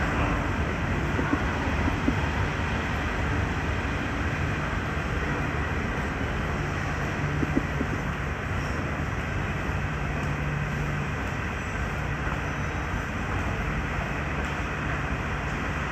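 Rubber-tyred Wenhu line metro trains running on the elevated concrete viaduct, a steady rushing noise over city street traffic. A low hum holds from about six to eleven seconds in.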